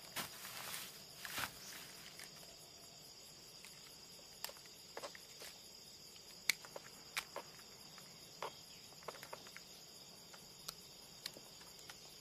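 Insects chirring steadily in a high, even drone through forest ambience. Brief rustles of movement through foliage sound in the first couple of seconds, and small scattered clicks and snaps follow.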